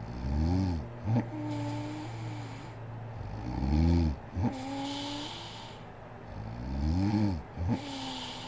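A sleeping woman snoring, three breaths about three seconds apart. Each breath in is a rattling snore that rises and falls in pitch and ends in a short, sharp snort, followed by a long humming breath out.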